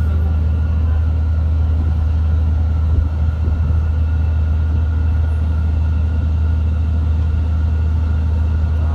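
Boat diesel engine running steadily: a low, even drone with no change in pace.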